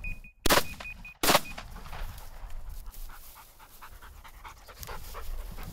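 Two shotgun shots about a second apart at a flushing game bird, the loudest sounds, followed by a bird dog panting.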